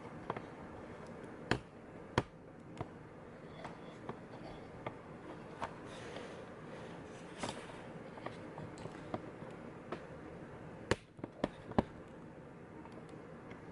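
Scattered sharp clicks and knocks from handling a camera setup as it is adjusted and repositioned, the strongest about one and a half seconds in, just after two seconds, and twice near eleven to twelve seconds, over a low steady background hum.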